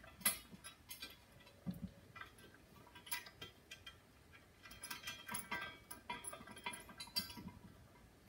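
Faint, scattered small metal clicks and clinks as nuts and bolts are handled and fitted to the steel frame of a tabletop hydraulic press during assembly, busiest from about five to seven seconds in.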